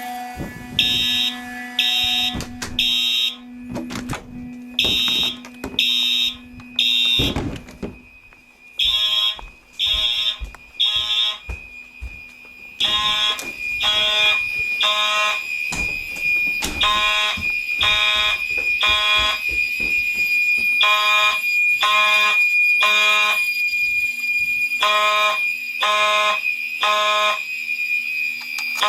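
Fire alarm horns sounding the temporal code-3 evacuation pattern: three short blasts about a second apart, repeating every four seconds, from several horns of different tone. A steady high tone joins about a third of the way in. The system is in alarm from a smoke detector set off with canned test smoke.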